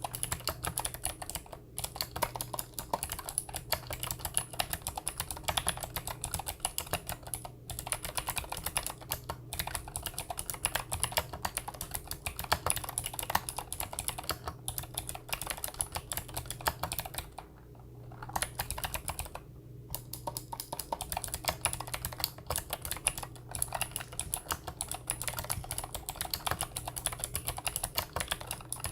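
Continuous fast typing on a Monstargear NINJA87 mechanical keyboard with clicky Gateron Blue switches: a dense run of sharp keystroke clicks, with two short pauses about two-thirds of the way through.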